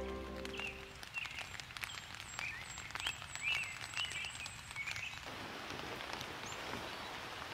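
Rain pattering on a tent fly, with sharp ticks of single drops. A run of about six short high chirps from a small animal falls in the middle. From about five seconds in it gives way to a steady, even rain in the open.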